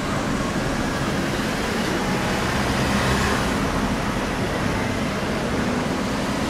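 Road traffic: car engines running in slow traffic with tyre noise, a steady hum that grows a little louder about three seconds in.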